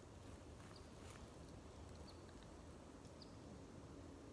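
Near silence: a faint low rumble, with a few brief, high, faint chirps from a small bird scattered through it.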